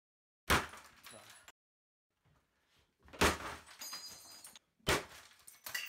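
Three heavy hammer blows on a broken-open HP laptop lying on a wooden desk, a second or more apart. Each is a sharp crack followed by a short clatter of breaking plastic and loose parts.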